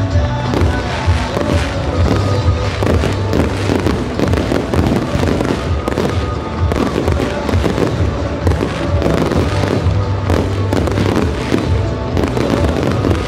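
Pyromusical fireworks: a dense, continuous barrage of shell bursts and crackle, many bangs a second, played together with music that has a steady low bass.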